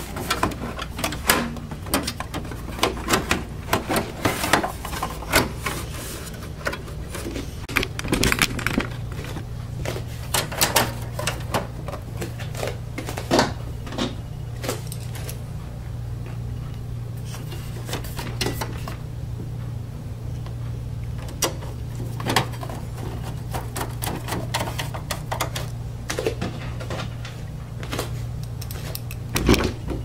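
Irregular clicks and taps of hands working screws into a desktop computer's sheet-metal case, over a steady low hum.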